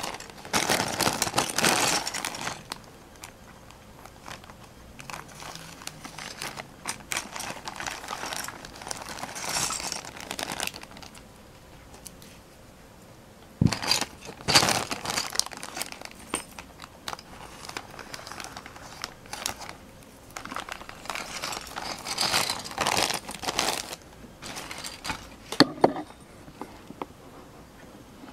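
Clear plastic bags of Playmobil parts crinkling in bursts as they are handled, opened and emptied, with a couple of sharp knocks among them.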